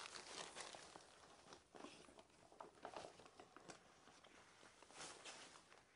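Faint, irregular rustling and crinkling of a wet, pre-pasted wallpaper panel being folded glue side onto itself (booked), with a few soft ticks.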